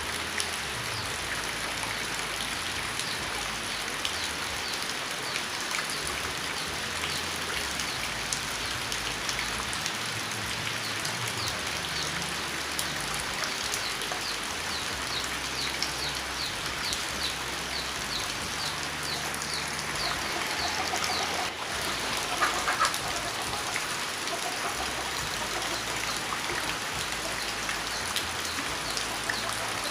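Steady rain falling, a dense patter of drops on a surface. Faint high chirps repeat evenly through the middle, and a short louder call comes about three-quarters of the way through.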